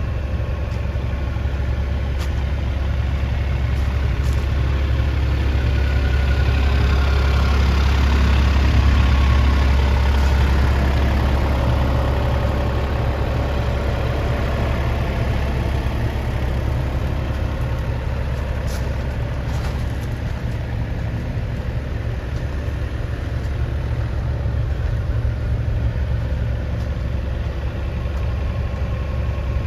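Caterpillar 303.5E2 CR mini excavator's diesel engine running steadily, swelling a little about eight to ten seconds in, with a few faint clicks.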